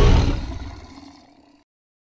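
The tail of a Carcharodontosaurus roar sound effect: a deep, rough roar that holds loud for a moment, then dies away over about a second and a half and cuts to silence.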